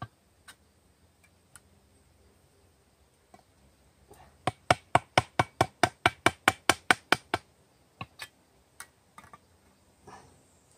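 Sharp, rapid knocks of a pointed tool punching a ring of holes into the lid of a tin can to open it without a can opener. A few single knocks, then a quick run of about five a second for around three seconds, then a few more.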